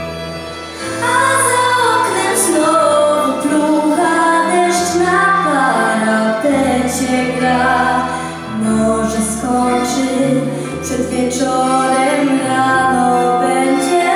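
A girl singing a Polish song into a microphone, amplified through the hall's speakers over an instrumental backing track with sustained bass notes. Her voice comes in about a second in, over the accompaniment.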